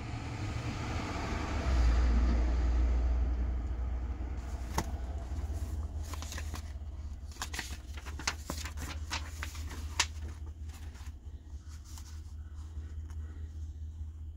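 Paper pages of a large bound book being turned and rustled, with a run of sharp clicks and knocks from handling partway through, over a steady low rumble.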